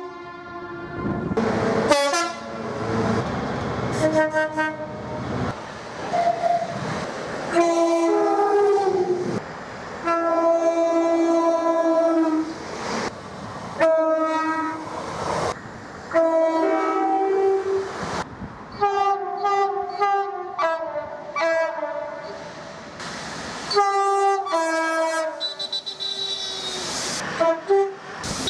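Class 313 electric multiple unit sounding its horn again and again as it departs: about a dozen blasts, each one a chord of tones, with the pitch shifting from blast to blast in a long many-tone horn display. Rail running noise and a few clicks can be heard between the blasts.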